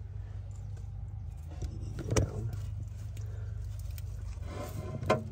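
Steady low hum with sharp metallic clinks and knocks of tools and clip leads being handled, the loudest about two seconds in and another near the end.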